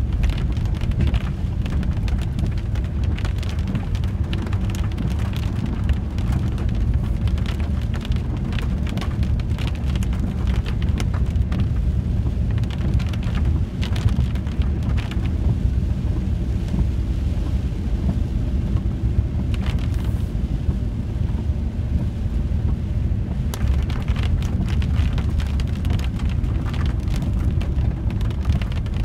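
VW T4 campervan driving on a wet road, heard from inside the cab: a steady low rumble of engine and tyres, with raindrops hitting the windscreen and roof in many sharp taps. The taps thin out for several seconds midway, then come thickly again.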